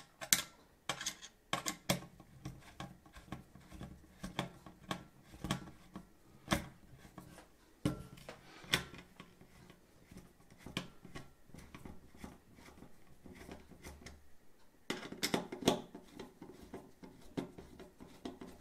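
Hand screwdriver driving a stainless steel screw through a metal mounting plate: a run of irregular clicks and scrapes as the screw turns and cuts its own threads into plastic. The clicks come thickest a little past the middle.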